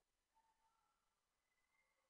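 Near silence: the recording is digitally quiet, with no audible sound.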